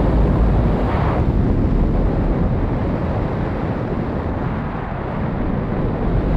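In-flight wind rushing over the onboard camera's microphone on an electric E-flite Air Tractor RC plane, a steady loud rush heavy in the low end with no clear motor tone.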